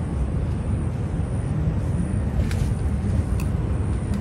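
Wind buffeting the microphone: a steady, fluttering low rumble, with a couple of faint ticks.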